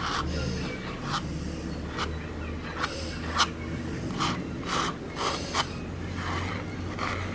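Metal palette knife scraping and spreading acrylic paint across a stretched canvas in short strokes, about two a second.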